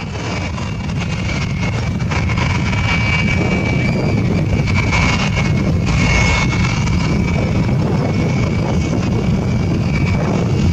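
Steady, loud engine rumble, building over the first couple of seconds and then holding, with a faint high whine above it.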